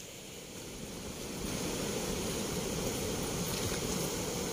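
Fast water rushing out through the sluice gates of a movable weir and churning below them: a steady rush of turbulent water that grows louder about a second and a half in.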